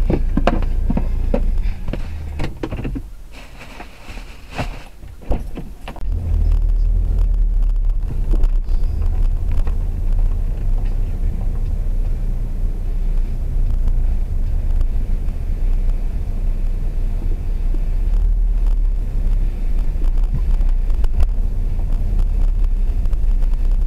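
Car driving slowly, heard from inside: a steady low rumble that grows louder about six seconds in, with a few clicks and knocks in the first three seconds.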